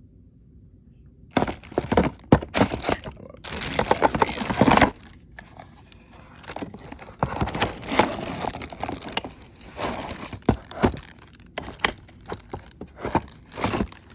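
Plastic packaging crinkling and rustling in the hands, with irregular clicks and knocks of handling; starts about a second in and comes in uneven spurts.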